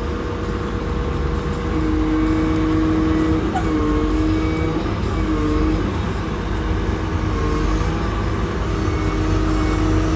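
Motor grader's diesel engine running steadily under a low rumble, with a whine that shifts slightly in pitch a few times.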